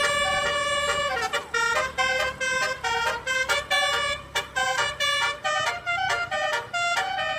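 Basuri telolet horn, a multi-tone vehicle horn, playing a melody: a held note for about the first second, then a quick run of short notes stepping up and down.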